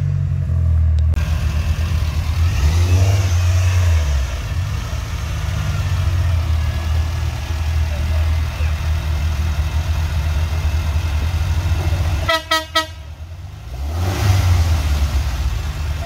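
Off-road vehicle engine running with a steady low rumble while driving, and a quick run of four or five short horn toots about twelve seconds in.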